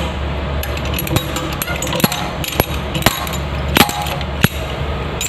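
Sharp metallic clicks and taps, about seven at irregular intervals, from tools and metal plumbing fittings being handled while a toilet inlet valve is taken apart, over a steady low hum.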